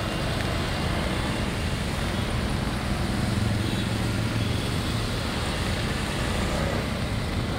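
Road traffic on a flooded road: cars and auto-rickshaws driving through standing water, tyres hissing in the water over a low engine drone that swells about three seconds in.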